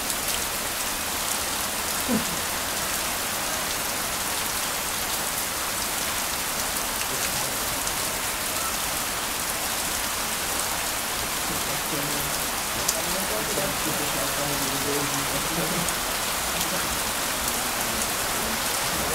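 Heavy rain falling steadily, an even hiss of rain on the grass. Faint voices come through it in the second half.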